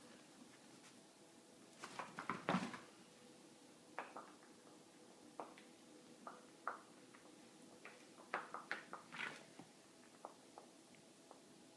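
A pet coughing in clusters of short, sharp coughs, the loudest run about two seconds in and another about eight seconds in.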